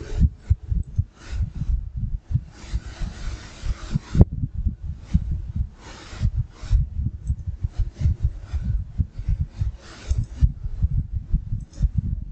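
Irregular low thuds and rubbing noise close to the microphone, with a stretch of hiss about two to four seconds in that ends in one sharp click.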